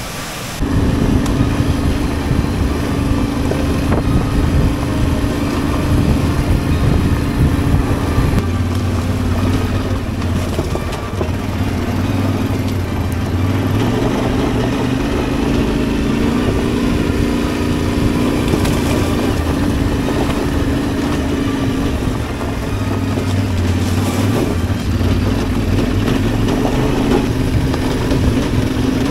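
Adventure motorcycle engine running under way off-road, starting abruptly just after the beginning. Its pitch drops and rises several times as throttle and gears change.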